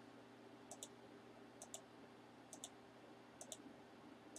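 Faint computer mouse clicks, about one a second, each a quick press-and-release pair of ticks: four in a row, with a fifth at the very end, over a faint steady hum.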